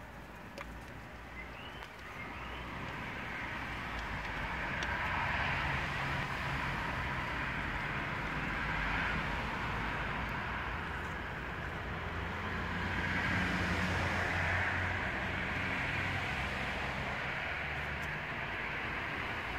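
Honeybee colony, a newly hived swarm, humming inside the hive as it clusters on fresh natural comb. A steady drone that grows louder a few seconds in.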